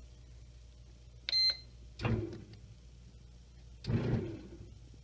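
Bread machine's control panel giving one short high beep as a button is pressed, about a second in, followed by two short low mechanical sounds about two seconds apart.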